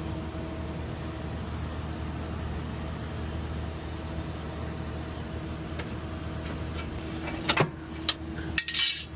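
Commercial refrigerator's compressor and condenser fan running with a steady hum. Near the end come several sharp clicks and rattles of parts being handled.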